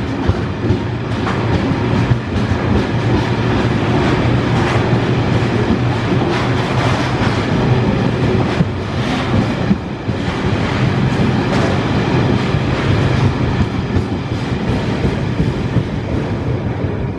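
Wagons of a ballast train rolling past close by, their wheels clattering over the rail joints with a steady rumble. The sound eases a little near the end as the last wagons draw away.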